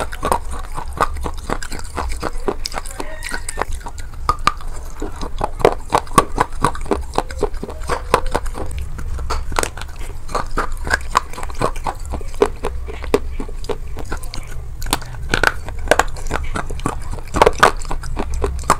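Close-miked biting and chewing of crunchy, crumbly food: a dense, irregular run of crisp crunches and wet mouth clicks, over a steady low rumble.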